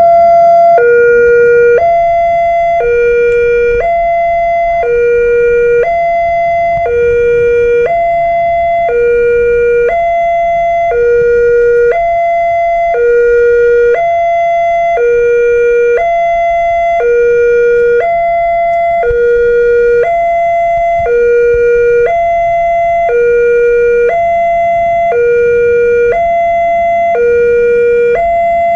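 Indonesian railway level-crossing warning siren sounding from a pole-mounted loudspeaker: an electronic two-tone alarm that alternates high and low, about one second per tone, repeating steadily. It signals that the crossing is closed and a train is approaching.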